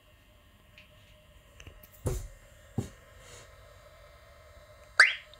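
Two short dull knocks, then about five seconds in a short rising electronic chirp from a bus stop-announcer unit as its touchscreen is worked with a stylus.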